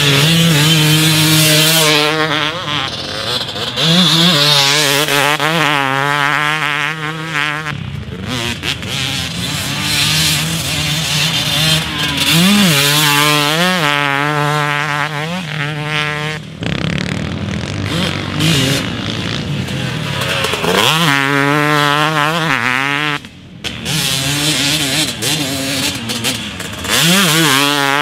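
Husqvarna TC250 250cc two-stroke motocross engine being ridden hard, its revs rising and falling over and over as the throttle is worked through corners and gear changes. The engine note breaks off and picks up again suddenly several times.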